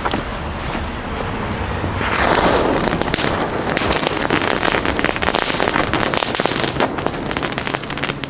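Small ground firework fountains burning together. A hissing spray of sparks with dense crackling starts suddenly about two seconds in and keeps going.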